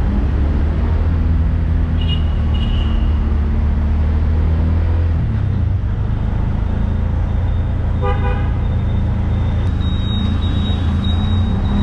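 Auto-rickshaw engine running with a steady low drone that shifts in pitch about five seconds in, with a vehicle horn tooting briefly about eight seconds in.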